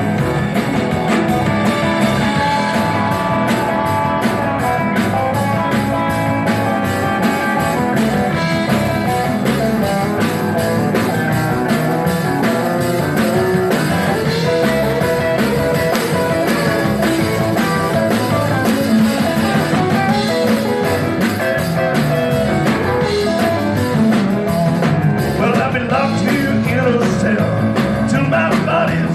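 Live band playing an instrumental break in a rock-and-roll song: guitar lead over a steady drum beat.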